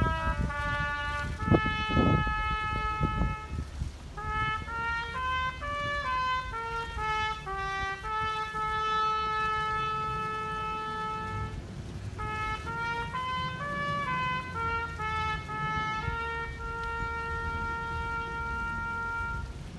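A slow, solemn melody played on brass, in phrases of long held notes. A few low thumps sound in the first few seconds.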